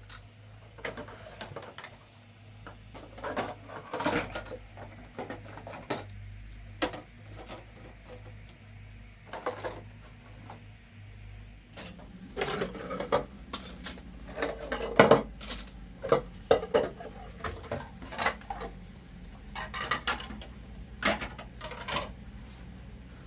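Irregular knocks and clinks of hard objects being handled, busiest in the second half, with a steady low hum that grows stronger about halfway through.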